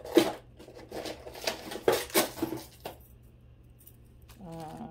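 Costume jewelry (beads, chains and small metal pieces) clinking and clattering together as it is handled and picked through: a quick run of clicks for about three seconds, then it stops.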